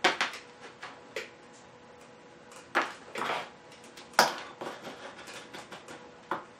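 Tools being handled and set down on an electronics repair bench: a handful of sharp clicks and knocks, the loudest at the very start and about four seconds in, with a brief rustle between, over a faint steady tone.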